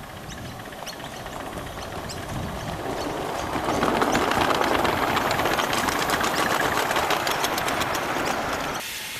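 Ridable miniature live-steam train running past close by: the rumble of its wheels on the rails and a quick, even ticking rhythm grow louder as the locomotive and wagons go by. The sound cuts off suddenly near the end.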